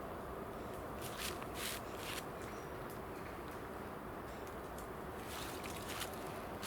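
Outdoor ambience with a steady low background rumble, broken by short dry rustles: a cluster of about four about a second in and another few near the end.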